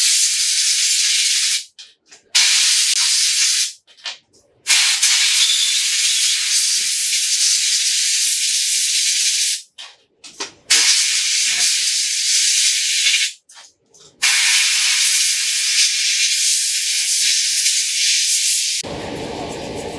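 Compressed air blowing liquid off small wet circuit boards: a loud hiss in five long blasts with short pauses between them. Near the end the hiss gives way to a quieter, lower background.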